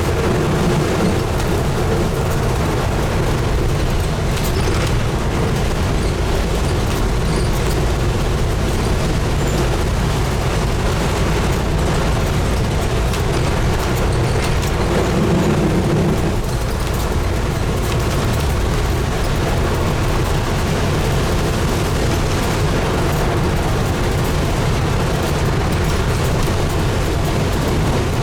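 Scania N250UD double-decker bus on the move, heard from inside: a steady low rumble of its diesel engine and road noise, swelling briefly about fifteen seconds in.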